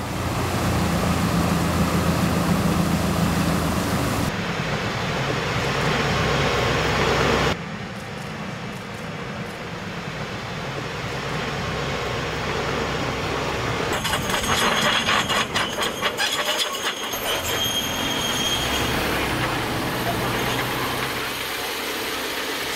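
Mercedes-Benz Unimog U 5023's diesel engine running steadily at low revs as the truck crawls off-road. The sound drops abruptly about a third of the way in. A run of rapid clicks and knocks comes a little past halfway, and the engine note comes up again near the end.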